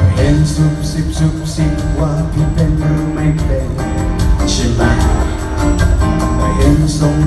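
A live pop band plays an instrumental passage through the arena's sound system, heard from the audience seats, with a steady drum beat and a bass line.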